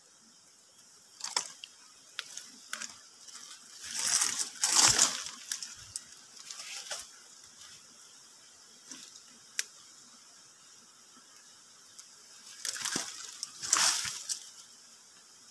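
Dry leaf litter and twigs crunching and rustling in several separate bursts. The loudest come about four to five seconds in and again near the end, with a few sharp clicks in between.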